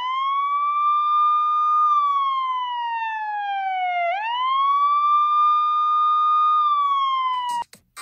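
Siren sound effect: a wailing tone that sweeps up quickly, holds, then slowly falls, twice over, and cuts off suddenly near the end.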